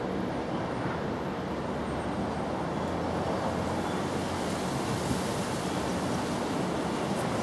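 Steady outdoor background noise: an even rumbling hiss with no distinct events.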